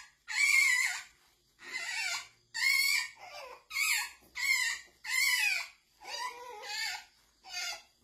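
Hog badger cubs crying: about ten short, high-pitched squealing cries, roughly one a second, with brief silences between them.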